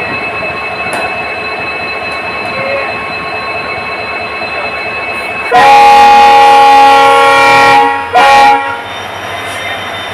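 Train running with a steady hum and thin high whines, headed by a WDG-4 EMD diesel locomotive. About five and a half seconds in, the locomotive's horn sounds one long blast of about two and a half seconds, then a short second blast.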